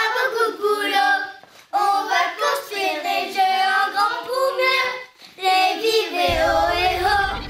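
Children singing a song in three short phrases, with the low beat of the backing music coming in near the end.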